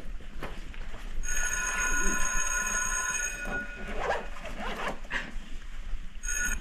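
Electric bell ringing in bursts of about two seconds with pauses between them, like a class-end bell. Between the rings there is rustling and shuffling.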